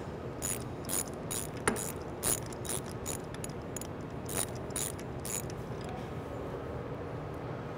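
A hand ratchet clicking in quick repeated swings, about two a second, with a sharp click about a second and a half in. It is turning a spark plug socket to back a spark plug out of a GM 2.2 L Ecotec engine, and it stops after about five seconds.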